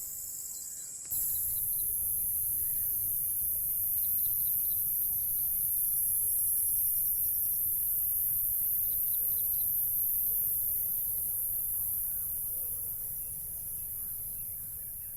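Steady, high-pitched chirring of an insect chorus. About a second in it switches abruptly to a louder, higher-pitched chorus that runs on.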